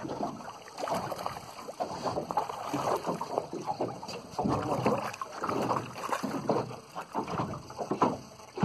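Water lapping and sloshing against the hull of a small boat, with wind buffeting the microphone in uneven gusts.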